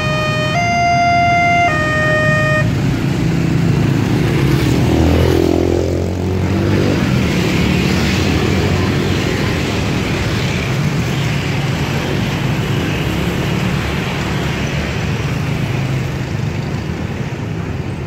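Railway level-crossing warning siren playing a stepped electronic tone pattern, which cuts off about two and a half seconds in as the crossing reopens. A dense stream of motorcycle and car engines follows as the traffic pulls across the tracks, with one vehicle passing close about five seconds in.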